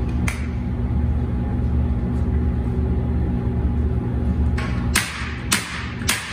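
A staple gun firing staples through velvet into a padded sound-board frame: four sharp shots about half a second apart in the last two seconds, over a steady low hum.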